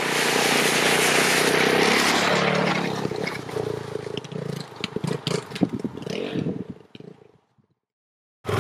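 Honda CRF450L's single-cylinder engine running as the bike splashes through deep standing water, the spray loudest over the first two or three seconds. The sound then trails off into scattered splashes and patters of falling water, and stops about a second before the end.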